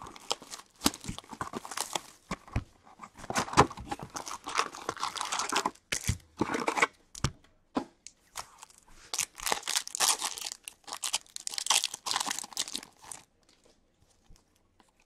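Tearing and crinkling of card packaging as a retail box of 2015-16 Upper Deck Series 2 hockey cards and its pack wrappers are ripped open, in irregular crackling bursts that stop near the end.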